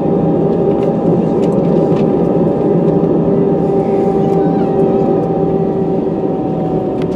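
Jet airliner cabin noise while taxiing: the engines run at idle with a steady whine over an even rumble, heard from a window seat over the wing, with a few faint light clicks.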